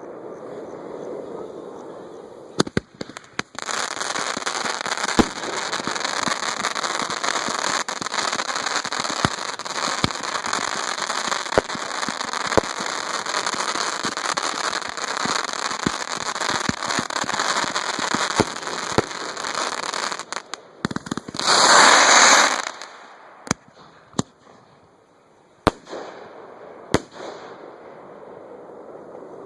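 A fireworks show heard from close to the launch site. From a few seconds in comes a long stretch of dense hissing noise studded with many sharp bangs. About 21 seconds in there is a loud hissing burst, followed by a few scattered single bangs.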